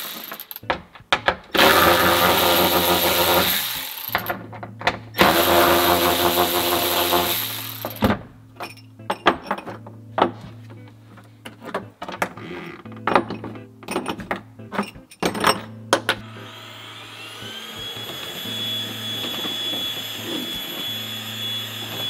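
Cordless electric ratchet whirring in three short runs as it backs out seat-mount bolts from a steel floor. Then the loose bolts and brackets clink as they are handled. About sixteen seconds in, a cordless stick vacuum spins up with a rising whine and runs steadily.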